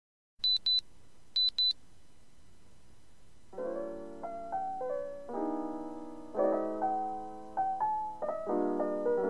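Two pairs of short high electronic beeps in the first two seconds, then soft piano background music that comes in about three and a half seconds in, with chords and a simple melody.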